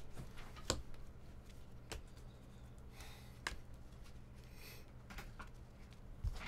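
Baseball trading cards being flipped through and sorted by hand: soft sliding and a handful of scattered light clicks as cards are moved from the front of the stack to the back, over a low steady hum.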